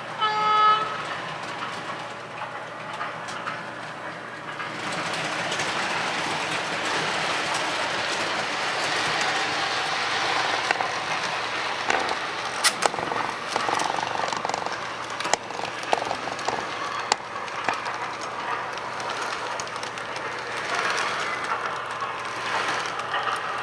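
MTH R16 subway model train: its horn sounds briefly at the start, then from about five seconds in the running train gives a steady rolling rush, with occasional sharp clicks.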